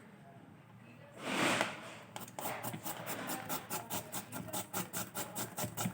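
A brief louder rustle, then fast rhythmic scraping strokes, about five a second, as food is worked with a kitchen utensil.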